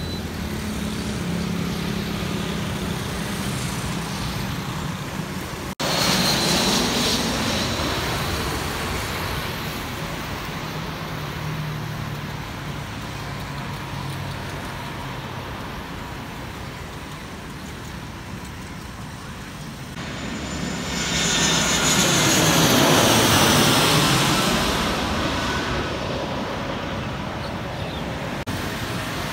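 Road traffic passing close by, cars and motorcycles going by. The sound breaks off abruptly about six seconds in, and there is a louder pass-by that swells and fades with a sweeping pitch from about 21 to 25 seconds in.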